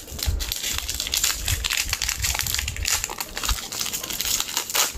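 Foil Pokémon booster pack wrapper crinkling and rustling as hands open it and work the cards out, a dense run of crackly rustles.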